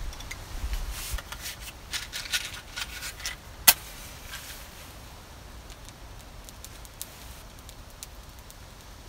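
Dry split kindling sticks clicking and knocking against each other as they are laid crosswise into a small fire lay, with one sharp knock about a third of the way in; after that only a few faint ticks.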